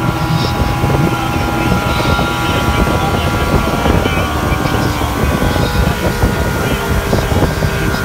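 115-horsepower outboard motor running under way, a steady engine drone mixed with the rush of wind and water.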